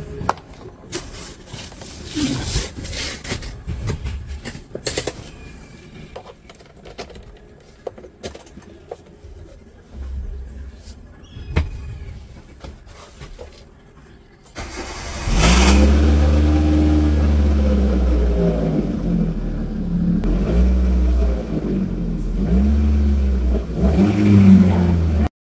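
Clicks and knocks of handling in the car, then, a little over halfway through, the Hyundai Santro Xing's four-cylinder petrol engine cold starts through a loud modified exhaust. It runs loudly and is revved again and again in short blips.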